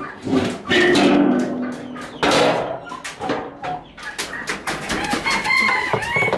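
Chickens clucking and a rooster crowing, over sharp scraping and clanking of a scoop and lid on a metal feed bin.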